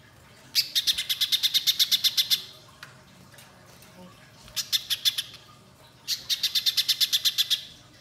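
Little spiderhunter (pijantung pisang) calling in three bursts of rapid, evenly repeated high chips, about ten a second. The middle burst is shorter.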